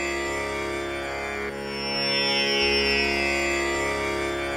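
Instrumental Indian classical music playing: long held string notes over a steady drone, with the bass line changing about a second and a half in.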